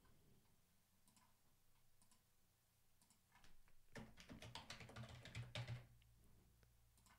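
Computer keyboard typing: a quick run of keystrokes starting about three and a half seconds in and lasting a couple of seconds, with near silence before it.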